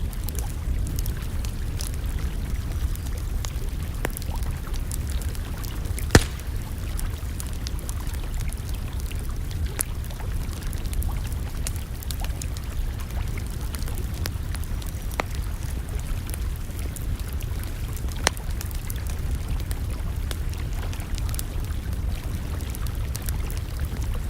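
Wood campfire crackling, with scattered sharp pops over a steady low rumble. The loudest pop comes about six seconds in and another about eighteen seconds in.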